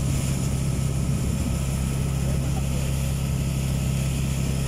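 Engine of a wooden motorized outrigger boat (banca) running steadily under way, a constant low drone with an even hiss of wind and water over it.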